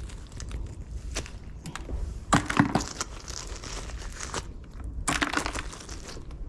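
Irregular crunching and knocking handling noises over a low rumble, loudest in a cluster about two and a half seconds in and again about five seconds in.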